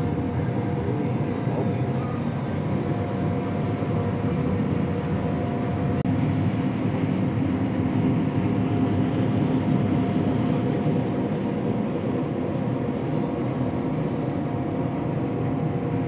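Combine harvester running steadily during corn harvest, a constant machinery drone with a steady whine through it.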